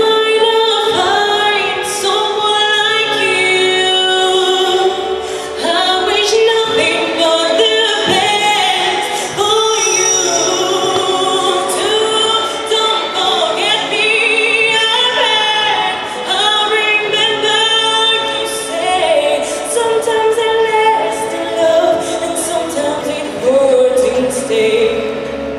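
Music with a woman singing, held and gliding notes over accompaniment.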